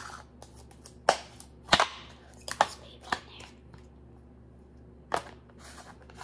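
Sharp pops and clicks as fluffy blue slime is squeezed and pressed into a clear plastic tub, three of them loud within the first three seconds. Then a single snap about five seconds in as the plastic lid is pressed onto the tub.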